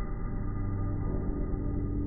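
Ambient background music of long held tones over a low drone.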